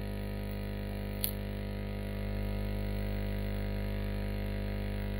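Steady low electrical hum with faint hiss, and a single sharp click about a second in, as of a mouse button pressed to run the search.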